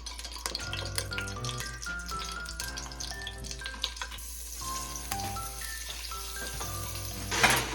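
Background music with a stepped melody over hot oil sizzling and crackling in a pan, with a hiss that grows about halfway through. A short, louder burst of noise comes near the end.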